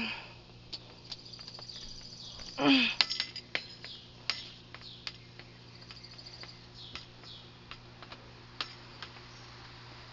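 Scattered small clicks and taps as a kitten eats from a dish, with brief high chirps now and then. About three seconds in comes one short, louder voiced sound.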